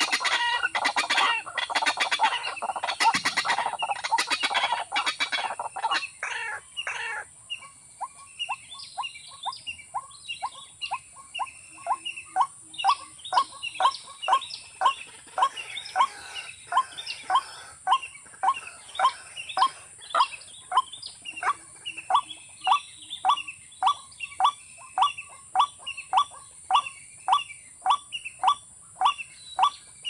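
Watercock calling: a dense run of loud calls for the first six or seven seconds, then an even series of short notes, nearly two a second.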